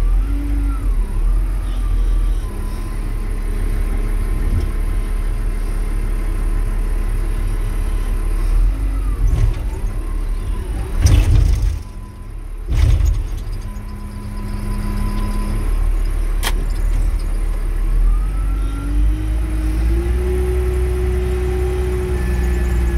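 Wheel loader's diesel engine running, revving up and down several times as the hydraulics work the arms, and rising again near the end as the bucket is lifted high. Two loud clunks come about halfway through, and a sharp click a few seconds later.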